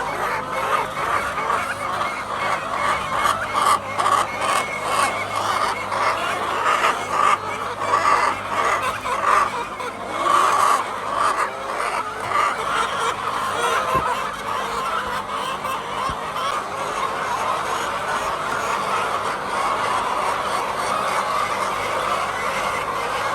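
A flock of laying hens clucking and calling, many calls overlapping without a break.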